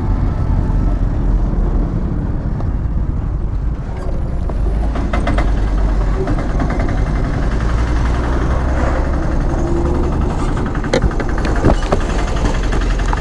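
Motorcycle running on the road, with a steady low rumble and a few sharp clicks near the end.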